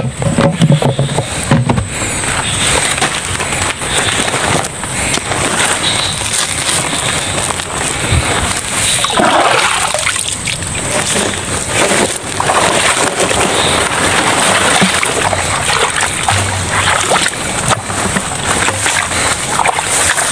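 Footsteps sloshing and splashing through shallow floodwater in wet marsh grass, with irregular rustling and brushing of the grass.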